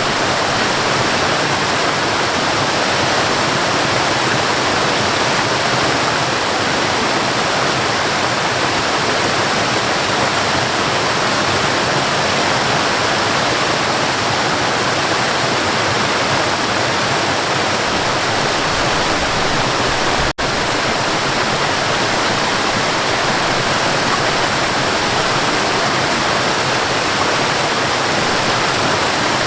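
Waterfall: a steady, dense rush of falling water, with one split-second dip in loudness about twenty seconds in.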